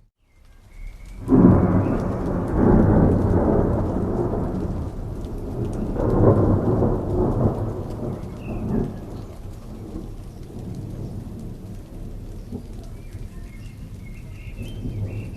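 Thunder rumbling over steady rain. After a brief dropout at the very start, a loud peal rolls in about a second in, swells again around six seconds, then dies away, leaving the rain.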